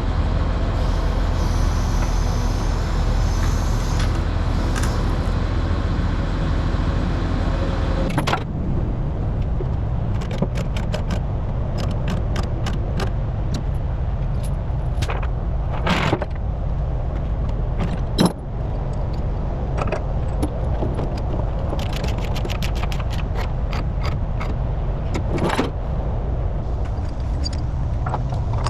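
A diesel engine running steadily; about eight seconds in the sound changes to a lower engine rumble with repeated metallic clinks and rattles of heavy load chains being handled to chain the excavator down.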